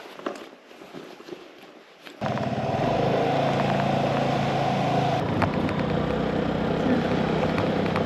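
Engine of a moving vehicle running steadily, cutting in abruptly about two seconds in after a quieter stretch with light clicks.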